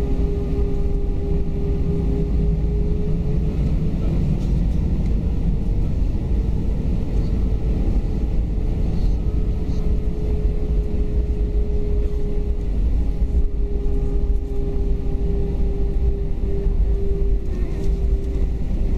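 Airbus A321 cabin noise while taxiing onto the runway: the jet engines run at low taxi thrust, a steady rumble with a steady mid-pitched hum over it.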